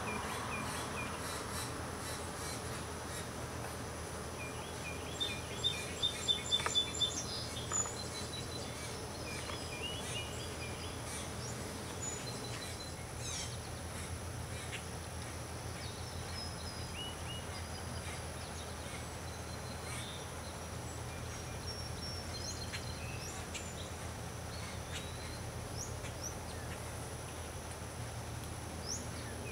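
Outdoor nature ambience: small birds chirping and calling on and off over a steady background hiss and a low hum, with a quick run of louder chirps about five to eight seconds in.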